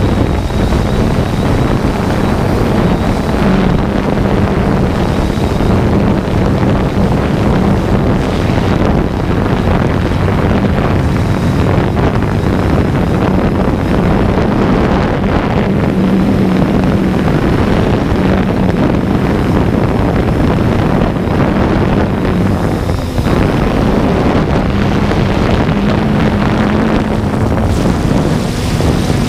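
3DR Solo quadcopter's motors and propellers running with a steady low drone, mixed with heavy wind rush on the microphone of the camera it carries.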